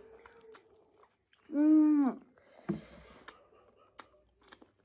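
Quiet mouth sounds of someone chewing and eating noodles, with small clicks, and one loud hummed "mmm" lasting under a second about a second and a half in.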